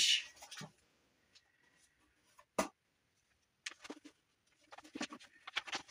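Cardboard and paper packaging being handled while a box is unpacked: a single sharp click or tap about two and a half seconds in, then short scattered rustles and crinkles toward the end.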